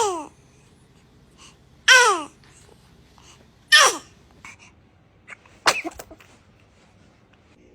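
A baby sneezing four times, about two seconds apart. Each sneeze is sudden and short and ends in a high voice sound that falls in pitch.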